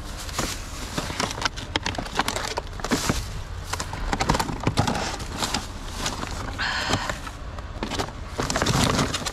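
Rummaging through discarded goods in a dumpster: irregular rustling of plastic bags and packaging with small knocks and clatters, with a denser crinkling spell about seven seconds in.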